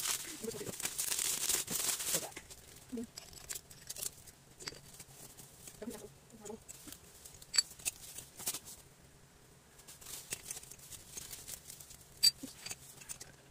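Plastic bubble wrap crinkling as a ceramic cup is pulled out of it, followed by quieter handling with a few sharp knocks. The loudest knock, near the end, is a ceramic cup being set into a metal wire rack.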